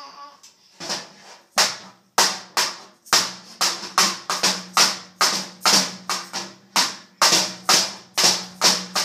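A rapid series of sharp bangs or slaps, about two to three a second, each ringing briefly. They get loud about a second and a half in.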